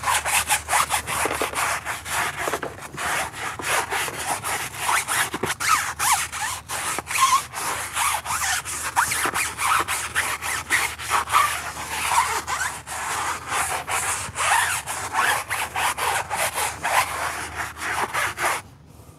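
Stiff-bristle tire brush scrubbing a wet, foam-covered rubber tire sidewall in quick back-and-forth strokes, a rapid scratchy rubbing that stops near the end.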